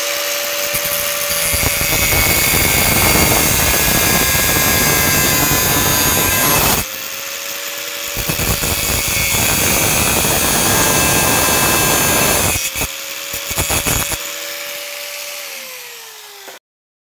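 Angle grinder with an abrasive cut-off disc cutting into a metal screw hook held in locking pliers: a steady motor whine under a harsh grinding hiss. The grinding breaks off for about a second some seven seconds in and then resumes, and near the end the whine falls as the motor winds down before the sound cuts off.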